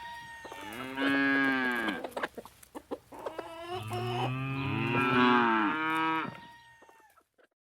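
A cow mooing twice: two long calls, each rising and then falling in pitch, the second one longer and louder.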